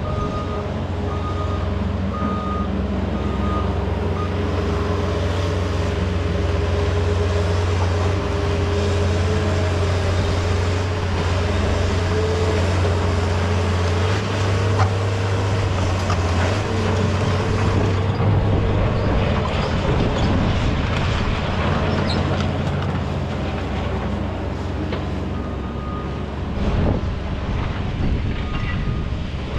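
Heavy diesel equipment running at a steady drone, with a backup alarm beeping about once a second at the start and again near the end. From a bit past halfway, a dense rattling and scraping joins the engine.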